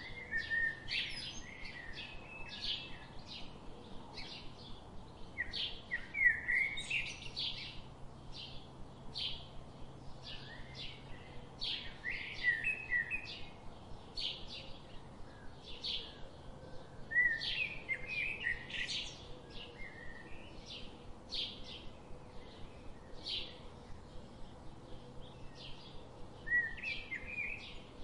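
Small birds chirping: a steady run of short, high chirps, broken every few seconds by louder twittering phrases.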